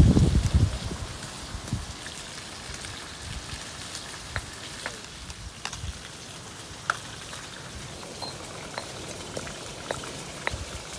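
Stone mortar and pestle crushing chilies: heavy thumps in the first second, then scattered light taps and scrapes at irregular intervals over a steady hiss.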